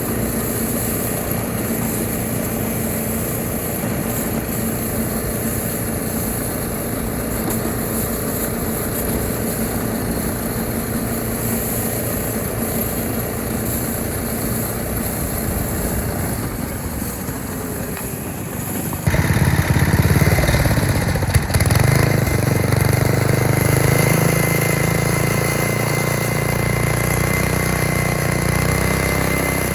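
Small engines of homemade motorized track sleds running steadily. About two-thirds of the way through, the sound cuts abruptly to a louder, closer engine with a clearer steady pitch that rises slightly near the end.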